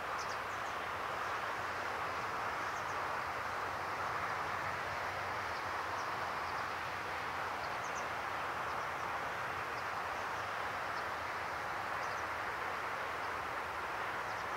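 Steady outdoor rush of noise, even in level throughout, with small birds giving short high chirps now and then.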